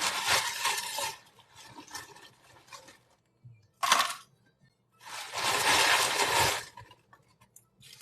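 Ice cubes clattering and clinking into a glass: a pour that ends about a second in, a short clatter near the middle, and a longer pour a little later.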